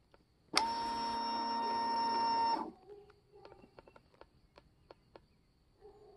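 Steady electric whine lasting about two seconds as the Indian Chief Bobber Dark Horse's ignition is switched on; it starts abruptly and cuts off sharply, followed by a few faint clicks. The engine is not running.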